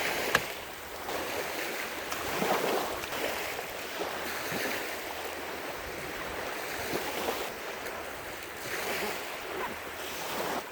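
Surf washing onto a sandy beach, an even rushing hiss, with a sharp click just after the start and a few faint small knocks.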